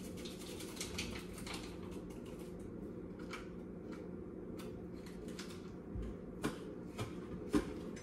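Small kitchen handling sounds while cooking: light rustling and scraping, then three sharp clicks in the last two seconds, over a steady low hum.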